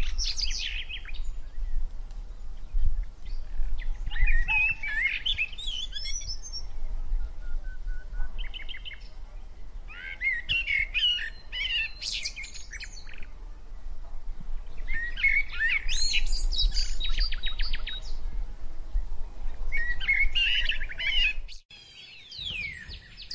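Songbirds chirping and trilling in bursts every few seconds over a steady low hum. Near the end the hum drops out and a run of quick falling whistles follows.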